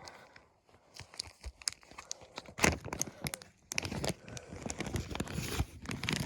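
Packaging crinkling and rustling as it is handled and pulled open by hand, in irregular scratchy bursts, busier in the second half.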